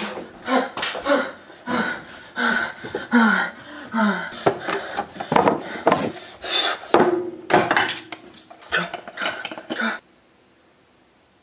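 Busy clattering and knocking of household objects mixed with short, wordless voice sounds that glide in pitch; it all stops abruptly about ten seconds in, leaving near silence.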